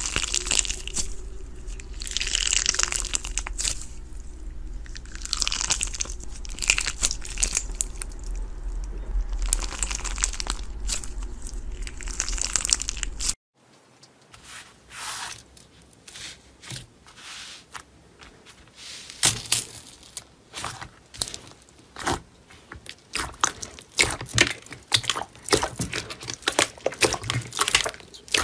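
Hands squeezing a clear crunchy slime full of jelly cubes, crackling in repeated swells over a steady low hum. About halfway through this gives way to a dark grey glossy slime pressed and kneaded by hand, with sharp popping clicks that come faster near the end.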